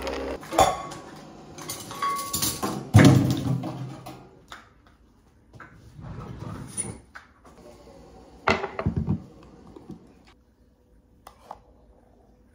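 Kitchen clatter: a spoon against a glass mug, then cups, jugs and utensils knocked and set down on a stone benchtop, with one heavy knock about three seconds in and more clinks later. A steady appliance hum stops just after the start.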